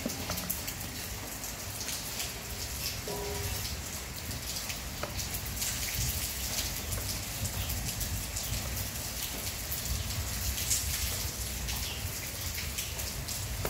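Steady rain-like patter: a dense crackling hiss that runs without a break, with a brief faint squeak about three seconds in.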